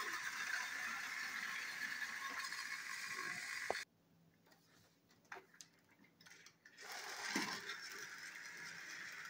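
Motorized toy train engines whirring along plastic track, a steady whine of small motors and gears. It cuts off suddenly with a click about four seconds in, leaving near silence with a few small clicks, and a whir starts again near seven seconds in.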